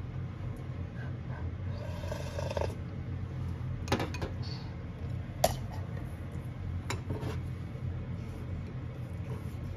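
A few sharp clicks of wooden chopsticks tapping against a thin aluminium pot, over a steady low hum.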